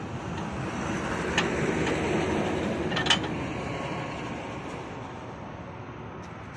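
A vehicle passing on the road, its noise swelling and then fading. Two sharp clicks come about one and a half seconds and three seconds in.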